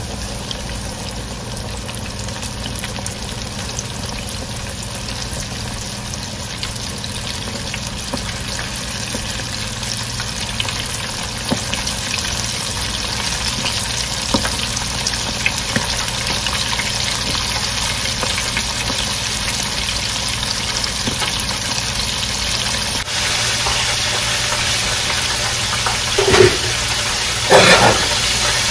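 Breaded chicken deep-frying in an electric deep fryer: the oil bubbles and sizzles steadily around the submerged basket. Two brief louder knocks come near the end.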